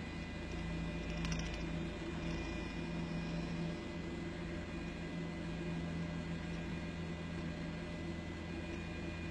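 Steady, unbroken rushing of a waterfall, with a faint steady hum underneath.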